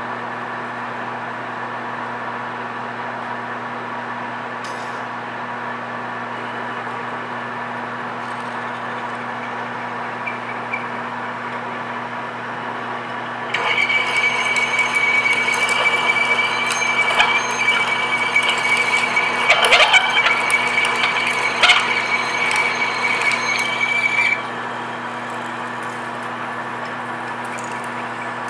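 PM1660 manual engine lathe running with a steady hum while a 1 3/16-inch high-speed-steel drill bores 6061 aluminum. About halfway through, the drill is fed in and cuts for about ten seconds, louder, with a steady high ring and scattered clicks. Then the cut stops and only the lathe's hum remains.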